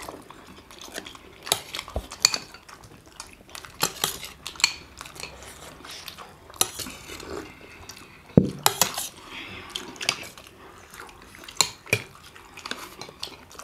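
Chopsticks and a metal spoon clicking and scraping against steel plates and a soup bowl during eating, in scattered short clinks, with one sharper knock about eight seconds in.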